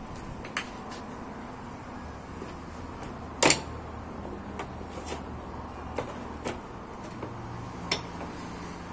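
A handful of short, sharp clinks and knocks, like hard objects or tools being handled and set down, the loudest about three and a half seconds in and another near the end, over a faint low hum.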